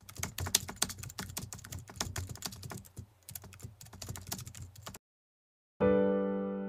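Rapid keyboard typing clicks for about five seconds, a sound effect for text being typed out on screen, then a brief silence and a piano chord struck near the end, ringing and fading.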